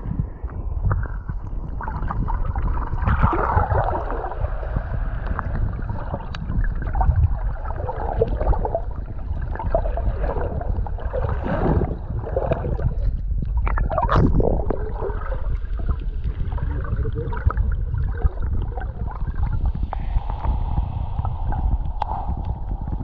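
Muffled water sloshing and gurgling, heard through a camera held under the surface in shallow surf, over a steady low rumble.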